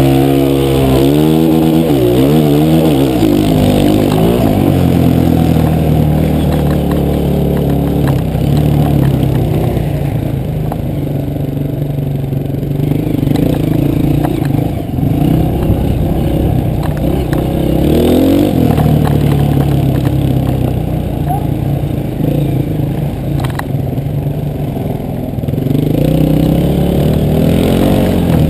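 An enduro dirt bike's engine, heard up close from the rider's own machine, revving up through the gears in quick rising sweeps at the start, then running on under varying throttle, with more revving about 18 seconds in and near the end.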